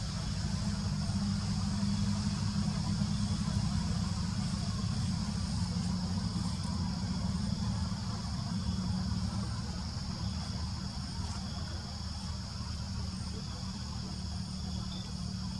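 Steady high-pitched insect chorus of crickets or cicadas, over a continuous low rumble.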